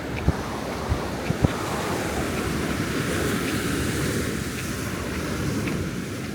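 Ocean surf washing onto a beach, a steady wash of wave noise with a little wind on the microphone. A few short low thumps come in the first second and a half.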